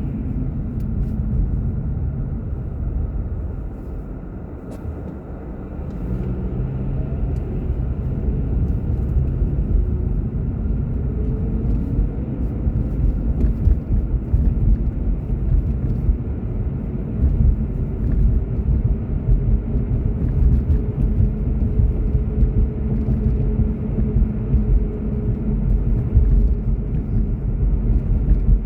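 A car driving, with a steady low rumble of engine and road noise. It eases off briefly about four seconds in, then the engine note climbs again as the car picks up speed.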